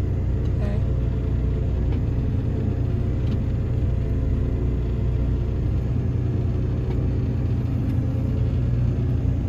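Heavy diesel engine of a farm vehicle running steadily, a low even drone with a constant hum.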